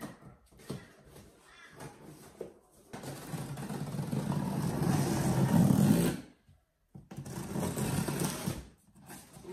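Packing tape being ripped off a large cardboard shipping box: a rasping, rattling rip that grows louder for about three seconds and stops abruptly, then a second, shorter rip after a brief gap.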